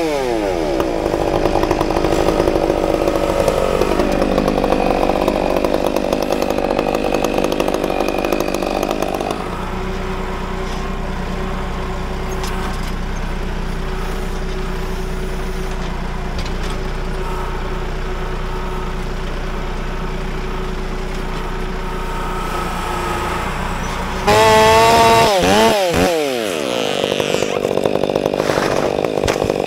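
Chainsaw running throughout, its pitch dropping right at the start and shifting again a few seconds in; about 24 seconds in it revs up hard and falls back, the loudest moment.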